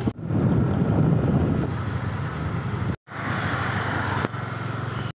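Steady engine hum and road noise of a moving vehicle, heard from on board. The sound breaks off sharply twice and resumes.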